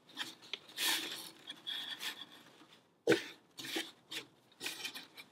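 Rustling and scraping of a fabric crate liner as it is pulled and tucked around the inside of a wooden crate over compost, in short irregular bursts; the loudest is a sharp one about three seconds in.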